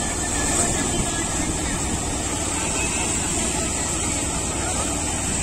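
Harnam paddy thresher running steadily under load as rice sheaves are fed into its threshing drum, with the tractor engine that drives it running beneath.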